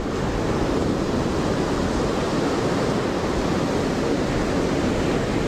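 Steady roar of ocean surf breaking on the beach, with some wind on the microphone.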